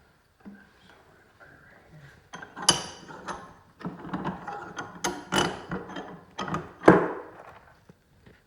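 Metal hand tool clicking and scraping against stranded 4-gauge copper wire as stray strands are trimmed, in irregular snaps with three sharper ones standing out.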